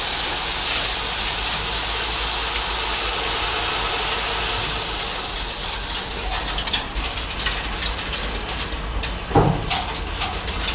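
Rock and gravel pouring off a dump truck's raised bed, a steady rushing hiss that thins out after about six seconds into scattered clattering of stones, with one louder thud near the end. The truck's engine hums low underneath.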